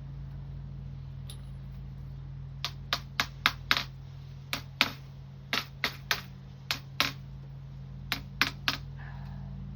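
Metal screen spline being tapped into the rail of a window-screen frame: about seventeen light, sharp taps in quick runs, starting a few seconds in and stopping near the end. A steady low hum sits underneath.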